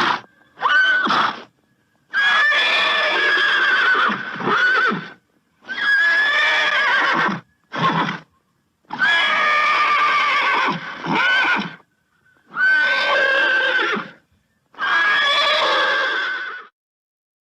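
A horse neighing again and again: a series of wavering whinnies, some short and some about three seconds long, separated by brief gaps of silence.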